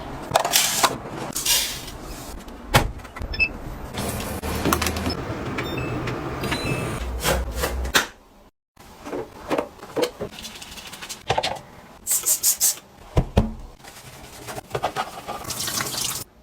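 A string of short knocks and clicks mixed with rubbing and rustling, like household objects being handled and moved, broken by a brief silent gap a little past halfway.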